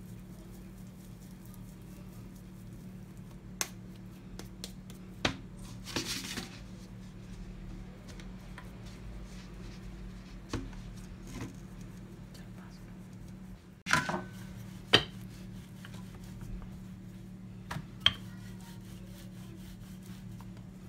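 Kitchen handling sounds of roti dough being shaped, dusted in dry flour in a metal bowl, and then rolled out with a wooden rolling pin on a granite counter. Scattered light knocks and taps, with a short rustling hiss, over a steady low hum.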